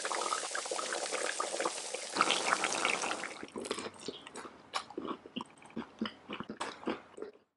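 Food sizzling and bubbling in frying pans, a dense steady hiss. About three and a half seconds in it gives way to scattered clicks and taps of chopsticks and spoons on bowls and plates during eating.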